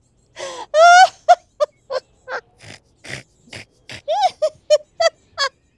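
A person laughing in a stifled, exaggerated way: a string of short bursts, about three a second, some breathy and some high and squeaky, with the pitch jumping up and down.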